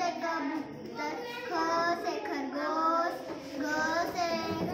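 A child reciting the Hindi alphabet aloud in a sing-song chant, one drawn-out letter-syllable after another, read off a wall chart.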